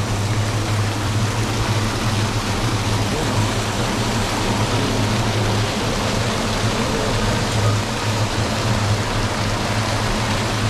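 A stream's flowing water rushing steadily, with a low rumble underneath.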